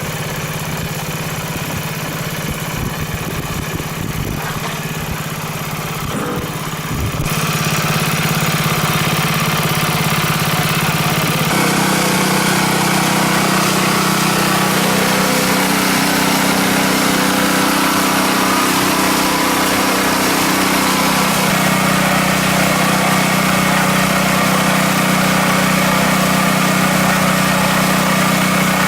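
Engine of a heavy-duty earth auger running steadily. It gets louder about seven seconds in and rises in pitch about four seconds later, then keeps running evenly.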